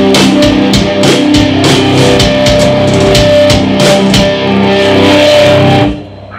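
Live rock band with guitars and drum kit playing loudly, then stopping abruptly about six seconds in as the song ends.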